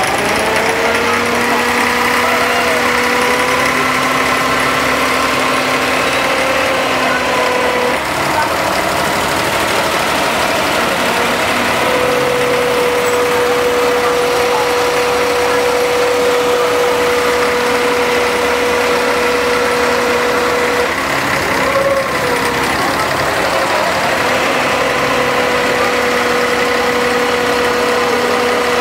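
Boat engine of a wooden abra water taxi running steadily: a loud, even engine hum with a steady higher tone over it that drops out and comes back twice.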